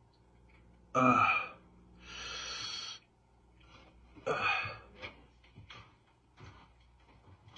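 A person's two short pained cries, about a second and about four and a half seconds in, with a long hissing breath between them, in pain from a cyst on the arm being squeezed.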